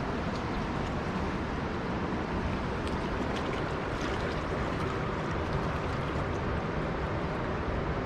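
Steady rushing of water from a dam spillway, an even noise with no letup.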